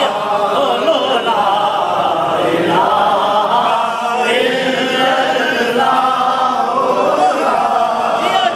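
A man singing an Urdu/Punjabi naat unaccompanied, in a continuous, melodic, chant-like recitation with long wavering held notes.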